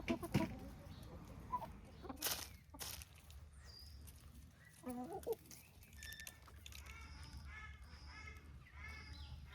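Chickens clucking, with a rustling, scuffling noise about two seconds in and a run of repeated harsh bird calls in the second half.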